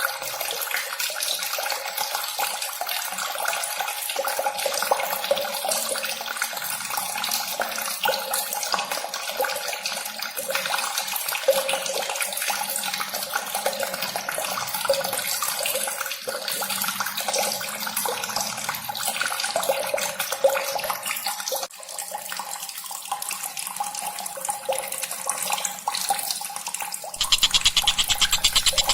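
Continuous dense chatter of bird calls from a tengkek buto (kingfisher) song recording, with a water-like rushing hiss under it. Near the end the sound switches to a louder, fast, evenly repeating pattern.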